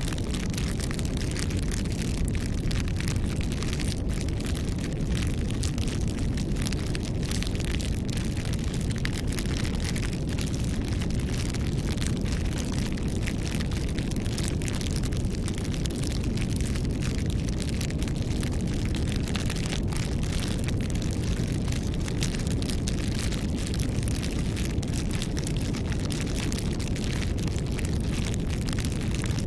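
Campfire burning with a steady low rumble and many small, irregular crackles and pops.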